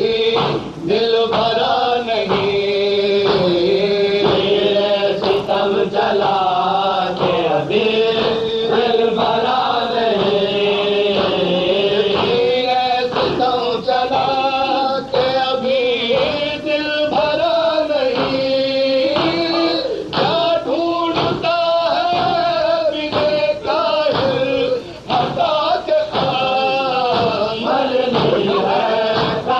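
Male voices chanting a noha, a Shia mourning lament in Urdu, in a sustained melodic line with a group of voices joining in.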